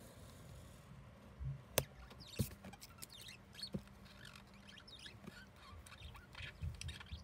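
Pen scratching on paper in short strokes as lines are drawn, with a sharp click about two seconds in and a few soft thumps of the hand on the paper.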